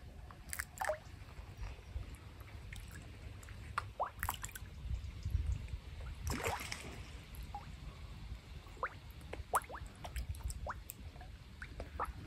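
Carp feeding at the surface on floating dog biscuits: scattered small plops and sucking pops at irregular intervals.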